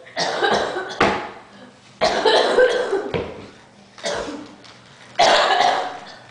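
A person coughing repeatedly: about six sharp coughs roughly a second apart, each starting suddenly and tailing off.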